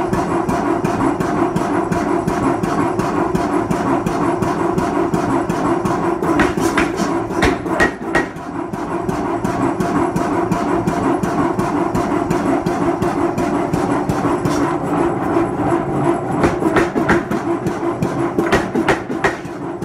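Blacksmith's air hammer (pneumatic power hammer) running and striking a glowing bar of hot steel in rapid, continuous blows over the steady hum of the machine.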